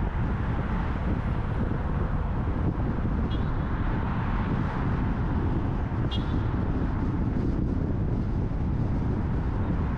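Steady road noise from a car driving: tyre and wind rumble, heavy in the low end, unchanging throughout.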